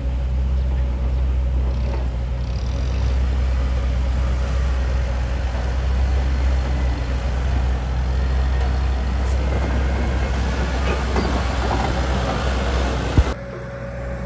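Heavy diesel engine of earth-moving machinery running steadily under load, low and droning. It grows busier about ten seconds in and cuts off abruptly near the end.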